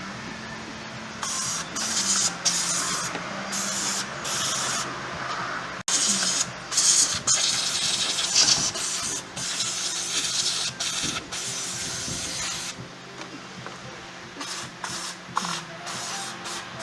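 Short hissing bursts of spray, repeated irregularly over several seconds with brief gaps between them.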